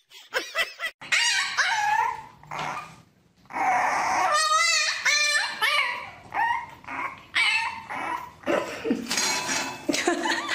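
A puppy whining and yipping in a run of short, high-pitched cries, with one longer wavering cry near the middle.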